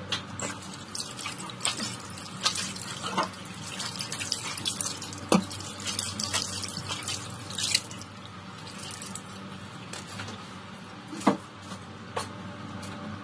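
Irregular drips, small splashes and sharp clicks of ice and water being handled, busiest in the first several seconds and thinning out later.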